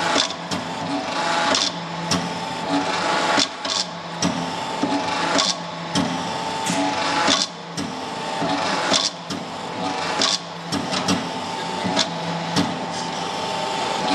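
Anyang 25-ton hydraulic forging press at work on a red-hot steel bar: the pump motor runs with a steady whine, its low hum swelling and easing as the ram cycles, with sharp knocks about once a second as the dies strike the hot steel.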